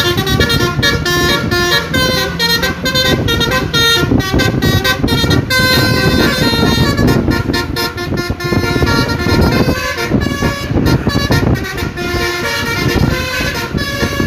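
Tour bus's telolet musical air horn playing a fast melody of tooting notes in quick succession, over a low rumble of noise.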